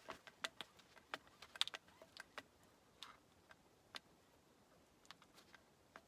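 Faint, irregular clicks and light ticks of a cartridge grease gun being worked on a grease fitting.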